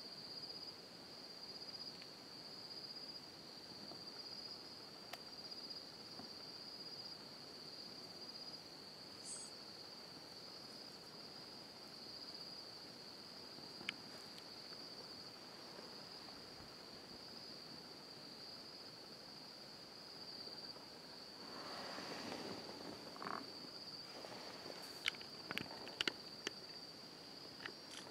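Crickets trilling in a steady high-pitched chorus, faint. About two-thirds of the way in there is a few seconds of rustling, then a few sharp clicks near the end, which are the loudest sounds.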